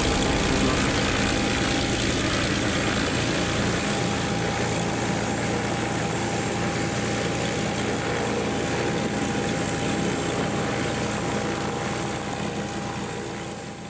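Boeing 737-7EJ (BBJ)'s CFM56-7 turbofan engines running on the ground: a steady jet rush with a constant whine, fading out near the end.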